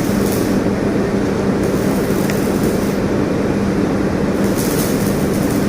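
A vehicle running steadily: a continuous rumble with a constant low hum and no let-up.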